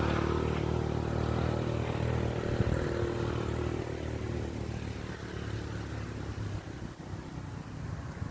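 A vehicle engine running steadily, a low hum that eases off slightly about halfway through.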